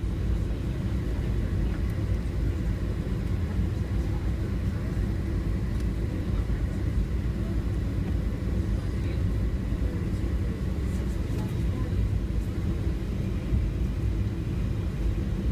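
Steady low rumble heard inside the cabin of a Boeing 737-700 taxiing: its CFM56 jet engines at taxi power and the airliner rolling along the taxiway.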